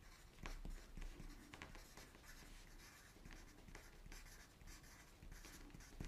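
Pencil writing on paper: faint, scratchy strokes of handwriting.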